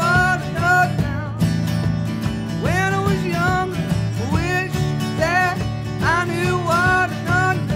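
Acoustic guitars strumming a steady backing under a harmonica lead that plays short melodic phrases, swooping up into each one, about every two and a half seconds.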